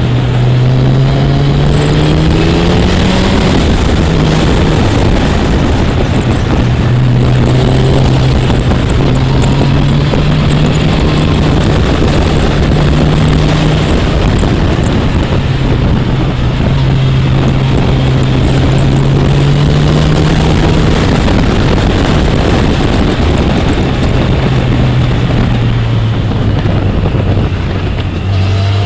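Motorcycle engine heard from on board under way, its note climbing in the first few seconds and dropping at a gear shift about three seconds in, then holding fairly steady with slow rises and falls. Wind rushes over the microphone throughout.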